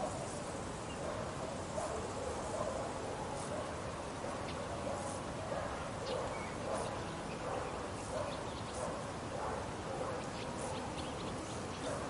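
Rural village summer ambience: a steady outdoor hiss with scattered short bird chirps and faint distant animal calls.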